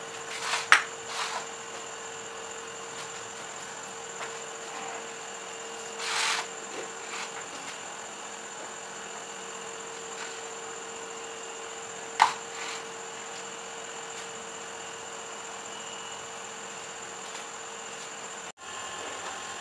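Steady electrical hum with a faint high whine, broken by a few light knocks and a short scrape of a plastic bowl being handled on a stone countertop.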